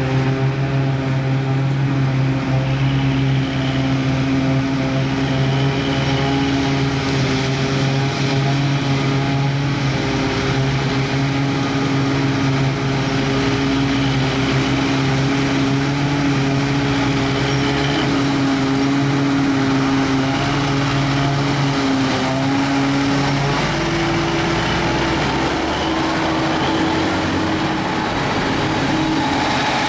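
Claas Jaguar self-propelled forage harvester chopping grass and blowing it into a trailer, running together with a Fendt tractor pulling the trailer alongside: a steady, loud, deep engine drone with several held tones over a machine rush. Over twenty seconds in, one of the tones shifts to a higher pitch as the machines come close.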